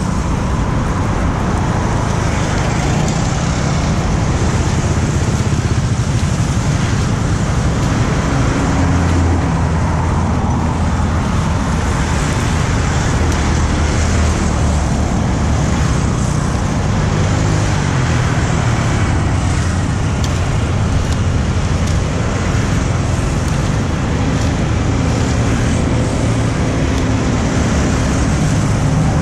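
Steady road traffic: motorbikes and cars passing close by, their engines humming and shifting in pitch over a continuous din.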